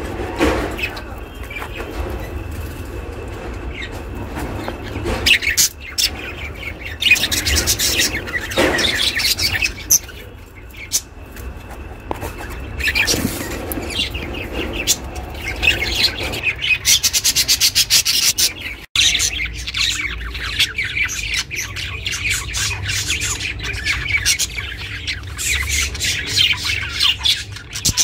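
Pet budgerigar (budgie) chirping almost without pause, with a fast run of rapid chirps about two-thirds of the way through, over a low steady hum.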